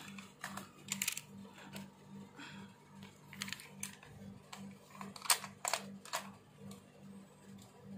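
A red dot sight being handled and set onto the top rail of an airsoft HK416 rifle: a few scattered sharp clicks and clacks, the loudest a little after five seconds, over a faint steady low hum.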